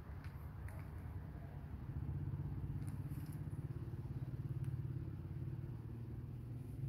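Low, steady rumble of a running motor-vehicle engine, a little louder from about two seconds in.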